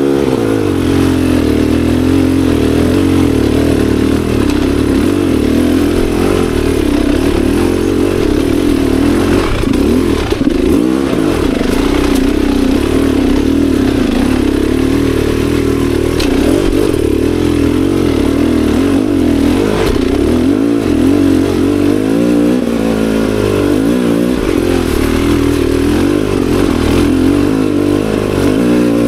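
Beta Xtrainer 300 two-stroke dirt bike engine running while riding trail, its pitch rising and falling with the throttle.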